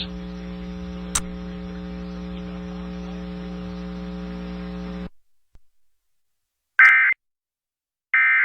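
Steady electrical hum with one click about a second in, cutting off about five seconds in. After a short silence come two short, loud data bursts about 1.3 s apart: the Emergency Alert System end-of-message code (the SAME "NNNN" tones), marking the end of the alert.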